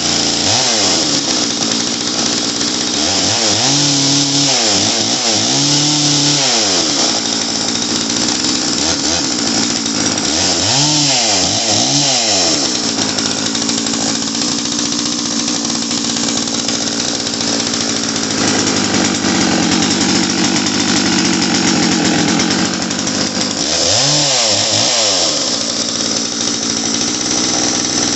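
Jonsered 670 two-stroke chainsaw running after starting, its engine note swept up and down several times between spells of steady running. It runs out pretty good.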